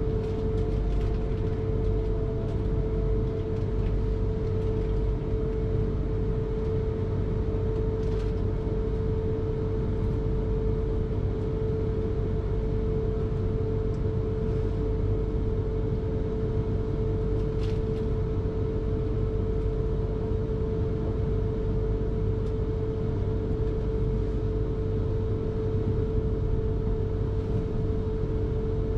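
South Western Railway electric train running at a steady speed: a low rumble of wheels on the track with a steady whine from the drive. A couple of faint clicks come through, one about a third of the way in and one a little past halfway.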